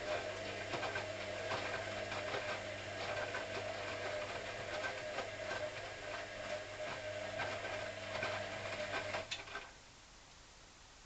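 Hoover CA232 washing machine's drum motor running with a steady hum and many irregular small knocks during a wash tumble. It stops abruptly about nine and a half seconds in, with a click just before.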